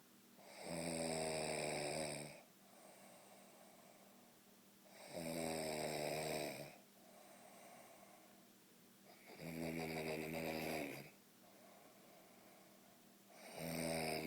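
A man snoring: four long snores about four seconds apart, each lasting about a second and a half, with softer breathing between them.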